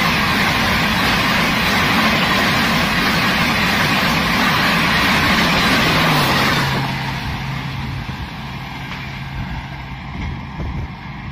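A passenger train's coaches rushing past at high speed, a loud steady roar of wheels on rail and air. About six seconds in, the rear power car goes by with a steady low hum that drops in pitch as it passes, and the roar falls away, leaving the fading hum.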